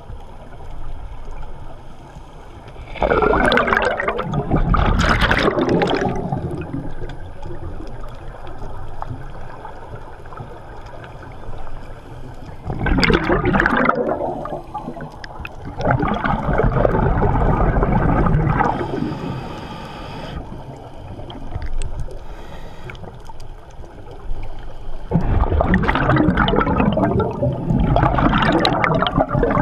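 A scuba regulator's exhaled bubbles rushing and gurgling past the camera underwater, in about four bursts of one to four seconds each, with a quieter wash of water between breaths.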